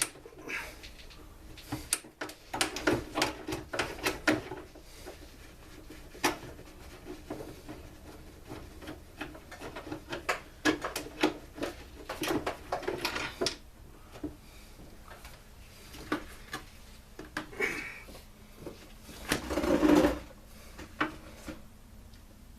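Irregular clicks, knocks and rattles of hand tools on the plastic and metal parts of a backpack blower being taken apart, with a louder clunk and clatter near the end.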